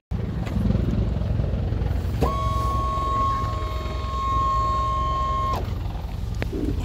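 Low steady rumble of aircraft engines running on an airport apron. A steady high-pitched tone starts about two seconds in, holds for about three seconds and cuts off sharply.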